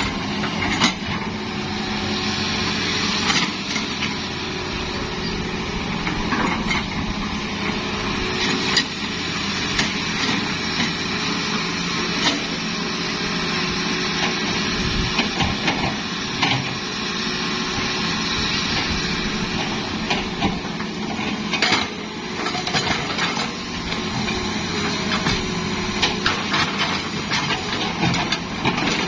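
Hitachi hydraulic excavator's diesel engine running steadily under work, with scattered sharp knocks and clanks every few seconds.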